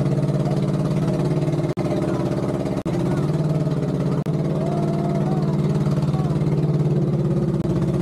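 Engine of a girico, a homemade open wooden off-road cart, running steadily under load as it drives along a dirt track with a dozen passengers aboard, with two momentary gaps in the first three seconds.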